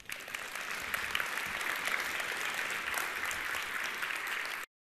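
Audience applauding steadily; the clapping cuts off suddenly near the end.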